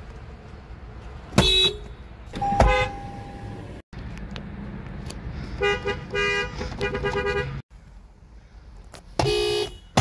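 Car horns of Japanese cars, a Subaru and a Lexus RX among them, sounded by short presses on the steering-wheel pad: a honk, then another, a quick run of four short toots, and one more honk near the end.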